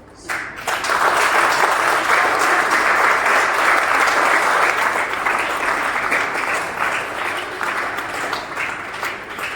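A crowd applauding: clapping breaks out suddenly just after the start, holds full for several seconds, then thins toward the end into scattered individual claps.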